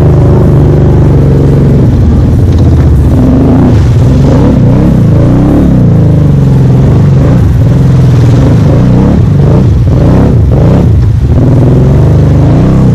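New Arctic Cat ATV engine, in its break-in period, heard loud from the handlebars while riding, its pitch rising and falling again and again with the throttle.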